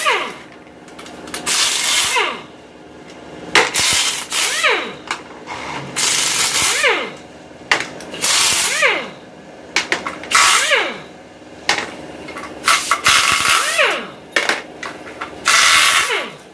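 Handheld power tool run in about ten short trigger bursts, its motor winding down in a falling whine after each release, as bolts are taken out during transmission disassembly.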